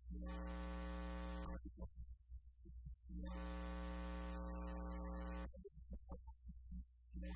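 Electrical mains buzz on the sound system: a steady low hum with a stack of evenly spaced overtones. It cuts in for about a second and a half, drops out, then returns for about two and a half seconds, with short broken sounds in the gaps.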